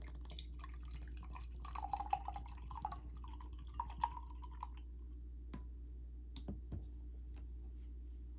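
Liquid sounds: a run of small watery drips and plops lasting about three seconds, then a few light clicks, over a steady low hum.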